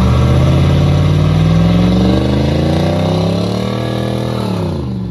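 A lowered pickup truck's engine revs up in one long rising pull as it launches and spins its rear tyres into light smoke. The revs drop off quickly near the end as the driver lifts.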